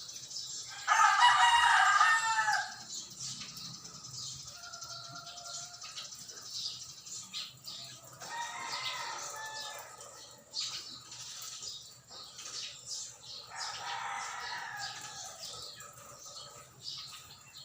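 A rooster crowing: one loud crow about a second in, then two fainter crows later.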